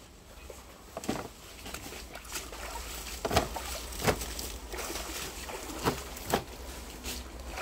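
Wash water sloshing and splashing in a metal drum as hands of green bananas are lifted out and set down dripping in a plastic crate, with irregular splashes and knocks, the sharpest a little past halfway through.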